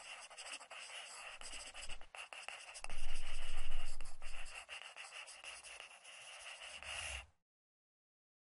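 Pen scratching and scribbling on paper, a drawing sound effect with many short strokes. It grows louder with a low rumble from about three to four seconds in, then cuts off suddenly about seven seconds in.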